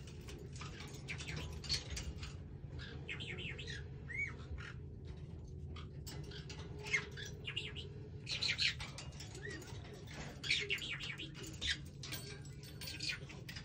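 Pet parrot chattering in irregular short bursts of chirps and squawks, with a few whistles that rise and fall, over a steady low hum.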